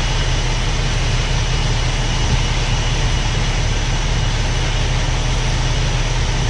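Steady low vehicle engine drone with an even rushing hiss over it, unchanging throughout.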